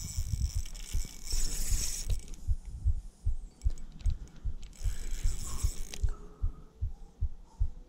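Spinning reel being cranked to wind in a lure, its handle and gears giving a steady rhythm of about three soft knocks a second. Two short rushes of hiss come through, about a second in and again around five seconds.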